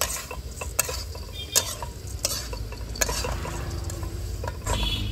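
A metal spatula stirring sev into hot masala in a metal kadhai, clinking and scraping against the pan about once a second over the sizzle of the frying spices.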